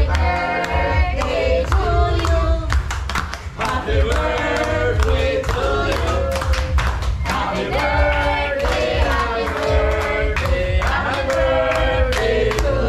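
Loud music with a steady bass beat and several voices singing.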